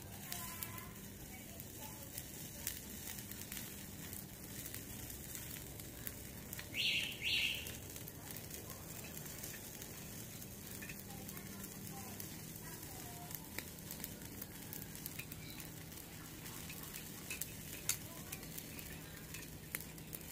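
Chicken feet sizzling on a wire grill over charcoal, with scattered crackles and light clicks from metal tongs turning them. Two short, loud, high sounds come in quick succession about seven seconds in.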